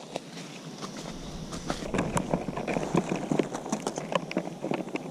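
Footsteps on a forest trail: irregular crunches and crackles underfoot as people walk on.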